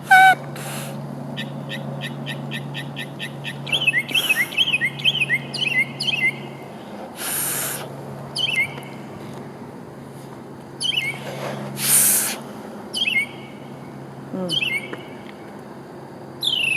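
Northern mockingbird singing at night: phrases of quick repeated chirps and whistled notes, with pauses between them. Two brief hissing bursts come about midway.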